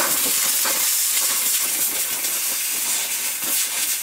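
Compressed-air blow gun blasting air in a steady, loud hiss, blowing grass cuttings off a lawnmower.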